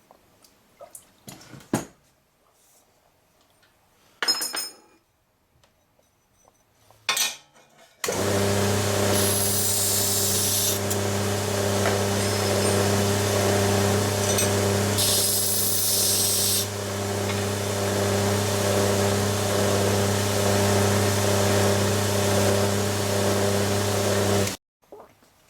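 Belt grinder motor starts about a third of the way in and runs with a steady hum, then cuts off abruptly near the end. Twice a steel knife blade is pressed to the belt, adding a loud, bright grinding noise for about two seconds each time. Before the grinder starts there are a few light knocks and clicks.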